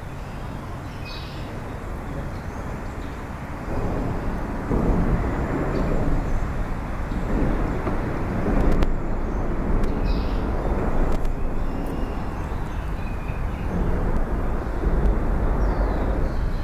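Traffic noise from the Bloor Street bridge overhead, a low rumble that grows louder about four seconds in and stays up.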